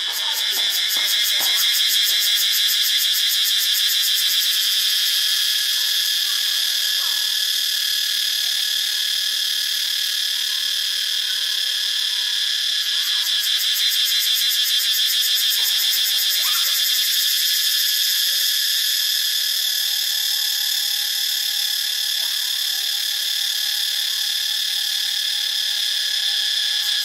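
Cicada singing close by: a loud, steady buzzing drone made of very rapid pulses, swelling up over the first couple of seconds and then holding on evenly.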